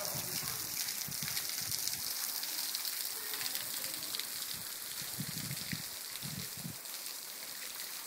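Small waterfall splashing onto rocks: a steady hiss of falling water.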